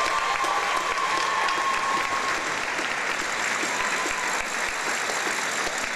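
Audience applauding steadily, with a thin, held high tone over the first two seconds.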